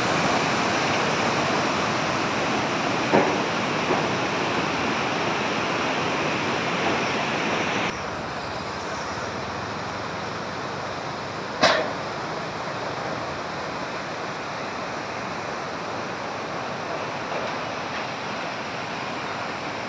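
Muddy floodwater rushing in a fast torrent down a stream channel, a steady wash of water noise. The rush turns quieter and duller about eight seconds in, and one short sharp sound stands out near twelve seconds.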